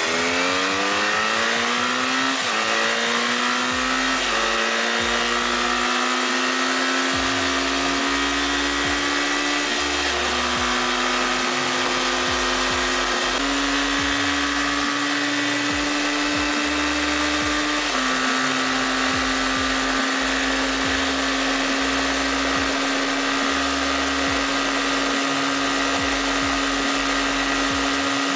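Honda CBR 450 SR's 447 cc two-cylinder engine at full throttle. Its revs climb fast through two quick upshifts in the first few seconds, then it holds a steady high-revving note at top speed, with a few small shifts in pitch and a steady rush of wind noise underneath.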